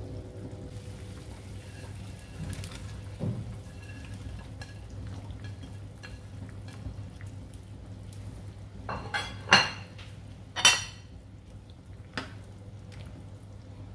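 Bowl and utensils knocking against a cooking pot as vegetables are tipped into soup and stirred: light clatter, then two sharp clinks about a second apart near the middle and a lighter one shortly after, over a steady low hum.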